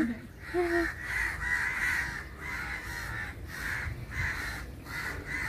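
A flock of crows cawing overhead: a fast, continuous run of harsh caws, two or three a second.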